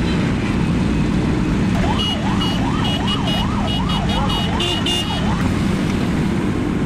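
Motorcycle engines running at low speed in a slow group ride, a steady low rumble close to the bike-mounted microphone. From about two seconds in, a siren wails up and down about twice a second for some three seconds, with short high beeps over it.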